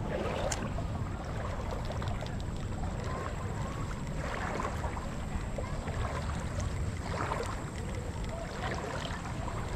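Steady noise of shallow river water flowing, with a few faint clicks, one about half a second in.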